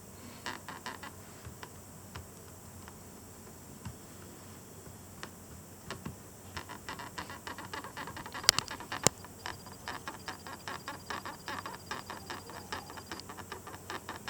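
Laptop touchpad creaking on its left side as it is pressed, each crackly creak running into the click of the pad, with the pad pressed over and over in quick succession from about six seconds in. Two sharp, louder clicks stand out about eight and a half and nine seconds in. The creak shows up when the laptop is cold, around 15 °C.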